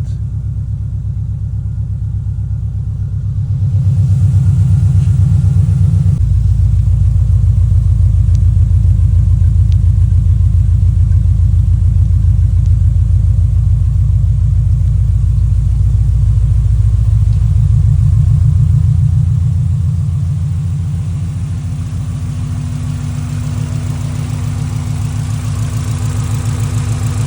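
Subaru Impreza's flat-four engine idling. Its note steps up a little about four seconds in and shifts again about two seconds later, then it settles quieter after about eighteen seconds.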